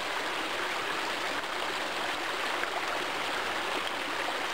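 Shallow rocky stream flowing, a steady rush of running water.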